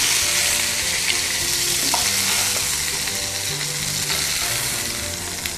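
Fish fillet frying in hot olive oil in a frying pan: a steady sizzle that slowly fades.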